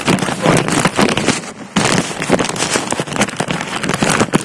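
Plastic bag crinkling and rustling right against the phone's microphone as the phone is wrapped in it: a loud, dense crackle of quick clicks, with a brief pause a little under two seconds in.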